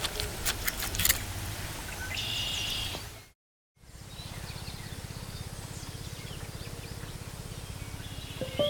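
Outdoor ambience with birds chirping over steady low background noise. There are a few sharp clicks in the first second or so, and the sound drops out completely for about half a second just after three seconds in.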